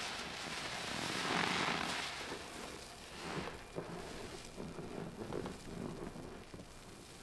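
A soaked sponge being squeezed over a bucket, water streaming out in a surge about a second and a half in, then quieter squishing and dripping.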